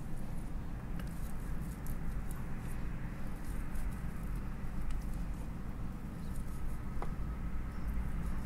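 Knife slicing through a whole snapper's scaled skin and flesh on a wooden cutting board: soft scratching and faint clicks, with a sharper tick about a second in and another near the end, over a steady low hum.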